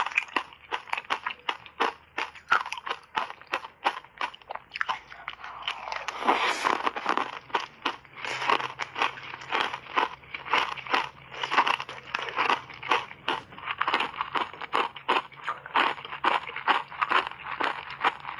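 Ice cubes and shaved ice coated in matcha powder being bitten and chewed close to a clip-on microphone, a rapid run of sharp crunches, several a second. A brief hissing noise comes about six seconds in.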